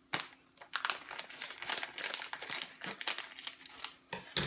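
A crinkly Cheetos snack bag rustling and crackling as it is handled and opened, in a run of irregular crackles with a sharper one near the end.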